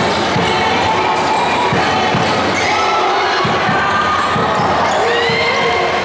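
Basketball game in a gym: scattered thuds of a basketball bouncing and feet on the wooden court, over a steady wash of crowd voices and long held calls.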